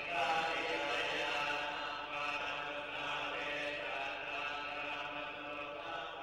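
Buddhist chanting by a group of voices in unison, a steady recitation on held pitches.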